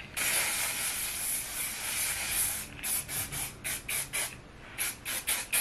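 Aerosol hair spray can spraying: one long hiss lasting about two and a half seconds, then a quick run of about a dozen short bursts.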